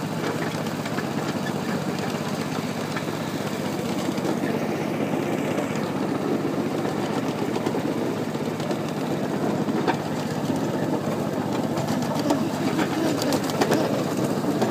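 Ride-on miniature train running along the track, a steady mechanical running noise with a few sharp clicks in the second half.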